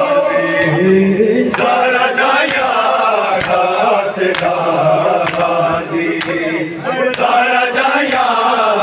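Group of men chanting a Punjabi noha (Shia lament) together in a slow rhythmic refrain, with sharp matam slaps (hands beating chests) landing about once a second in time with the chant.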